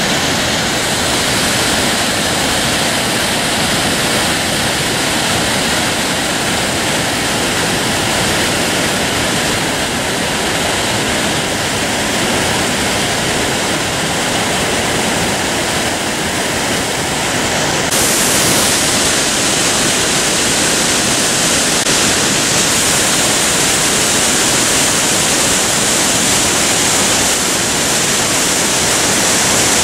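Loud, steady roar of a waterfall, white water pouring over rock ledges. The high hiss grows stronger about two-thirds of the way in.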